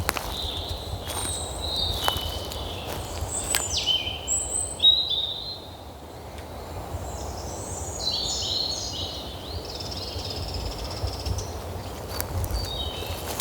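Birds singing in short whistled phrases over a steady low rumble, with a few sharp clicks.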